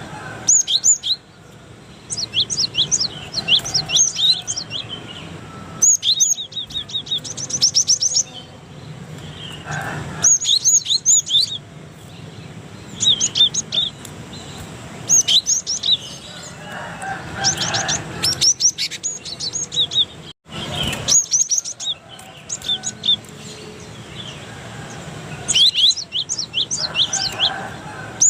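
Cinereous tit (gelatik batu) singing: bouts of quick, high, repeated whistled notes, each bout lasting a second or two, separated by short pauses.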